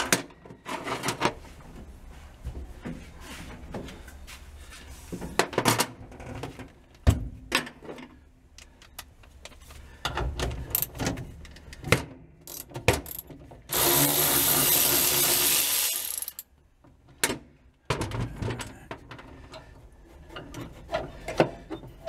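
Hand wrench working the bolts of a truck's parking brake retainer plate: irregular metal clicks and clinks. About 14 seconds in, a louder steady rushing noise lasts about two seconds.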